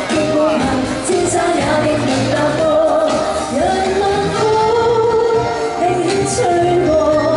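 A woman sings a Cantopop song live into a handheld microphone over backing music played through the PA, holding long notes as the melody moves.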